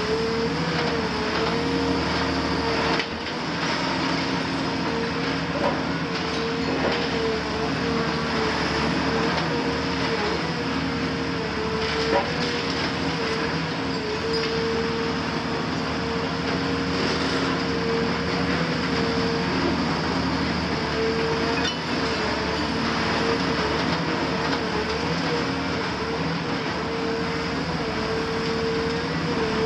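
CAT 340F UHD demolition excavator with its Cat C9.3 diesel running steadily under load, a hydraulic whine wavering slightly in pitch as the long-front boom works its demolition tool. A few sharp knocks and cracks of concrete breaking stand out now and then.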